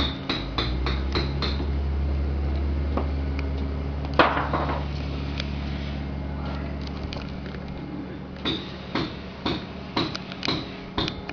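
Repeated hammer blows with a metallic ring, coming about two to three a second near the start and again near the end, over a steady low machine hum. A louder, longer scraping clatter comes about four seconds in.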